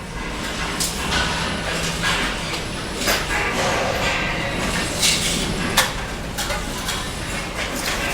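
Sharp knocks and scraping of a steel trowel working mortar and cement bricks, several strokes a second or two apart, over a steady low hum.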